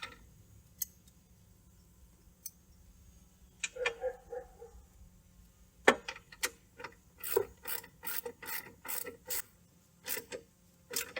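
A socket ratchet clicking in short runs as the bolt on the fuel filter's retaining band is tightened, at about three clicks a second.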